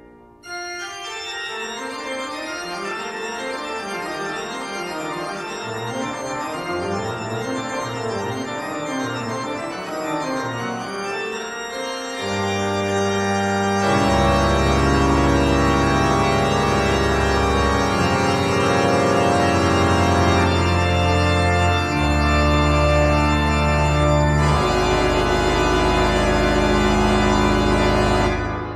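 Background organ music: sustained chords over moving lines, swelling about 12 seconds in to long, loud held bass notes that change every few seconds, then fading out at the end.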